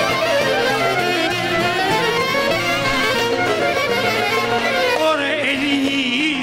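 Live Greek traditional folk music: a small band led by violin and clarinet plays an ornamented dance melody. A singer comes in near the end.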